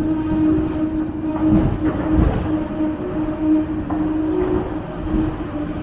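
Hong Kong double-decker tram running on its rails: a steady humming tone over a continuous rumble of wheels on track.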